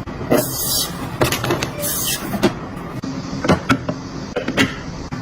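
Packaging being handled during an unboxing: scattered clicks and taps, with two short rustling bursts, about half a second and two seconds in.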